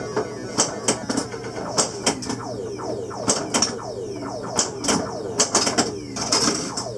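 Williams Black Knight pinball machine in play: irregular sharp clacks of its flippers and bumper coils, over its electronic sound effects of quick falling tones.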